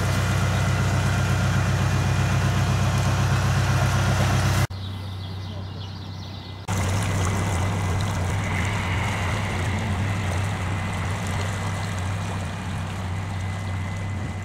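Narrowboat's diesel engine running steadily as the boat cruises, a low pulsing hum. It cuts to a quieter sound about a third of the way in and comes back loud a couple of seconds later.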